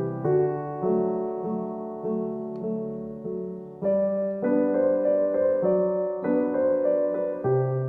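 Background piano music: a gentle melody of held notes over chords, with the notes changing about every half second.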